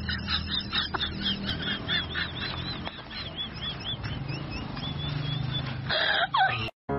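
Shiba Inu whining in a rapid series of short, high-pitched nasal whines, about three a second, ending in a louder, falling cry near the end.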